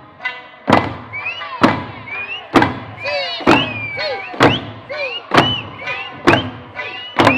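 Eisa taiko drums struck together by a troupe of dancers, a sharp beat about once a second, eight beats in all. Rising-and-falling voice calls sound between the beats.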